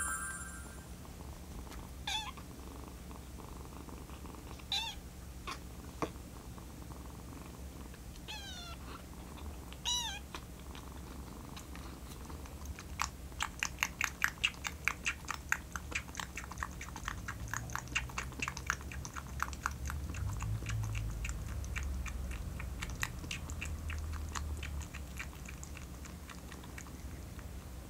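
Young kitten mewing about four times, short arching calls, then suckling milk from a nursing bottle's nipple with rapid wet clicking sucks that start about halfway through and fade near the end.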